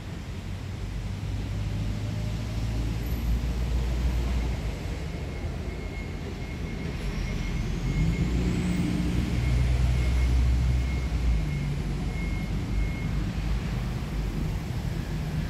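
Motor vehicle engines running nearby: a steady low rumble of road traffic that swells about halfway through, with a faint high whine and a brief rising glide above it.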